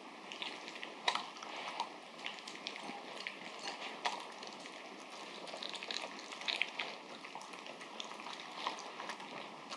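Papillon dog eating soft udon noodles and vegetables from a bowl: irregular wet chewing, smacking and small clicks of teeth.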